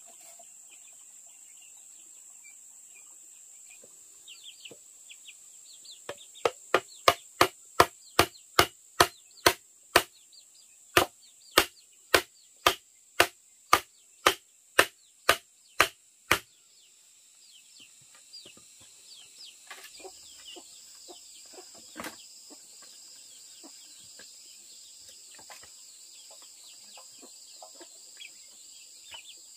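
A run of about twenty sharp chopping strikes from a blade, two to three a second with a short break about halfway, starting some six seconds in and stopping about ten seconds later. A steady high insect drone runs underneath.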